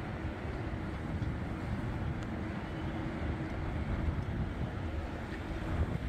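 Steady low rumble of a running motor, with a faint constant hum.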